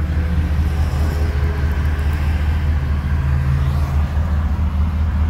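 1982 Checker Marathon's engine running and its tyres on the road while driving, heard from inside the cabin as a steady low drone.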